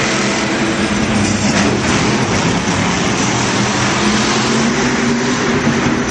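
Monster truck engine running loud and steady, with a faint engine tone drifting up and down underneath the dense noise.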